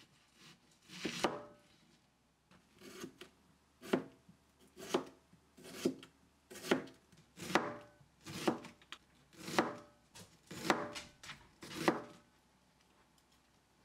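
Chef's knife slicing through a peeled onion onto a cutting board: about a dozen separate cuts, roughly one a second, each ending in a knock of the blade on the board.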